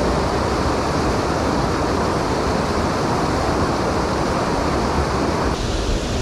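Steady rush of a mountain stream's flowing water. Near the end the sound changes abruptly and turns duller.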